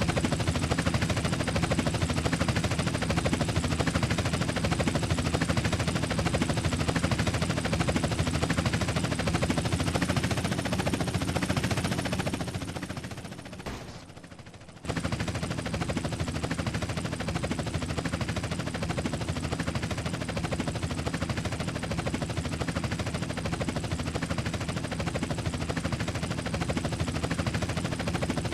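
Helicopter rotor chop: a fast, steady stream of blade pulses. It fades out a little before halfway, and after about a second of near quiet the same sound starts again abruptly.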